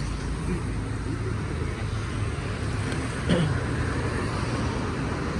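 Road traffic: a steady low rumble of vehicle engines and tyres, with a brief sound that drops in pitch about three seconds in.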